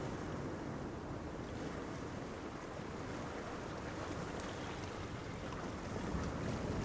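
Steady rushing noise of surf on a pebbly shore mixed with wind buffeting the microphone, even throughout with a heavy low rumble.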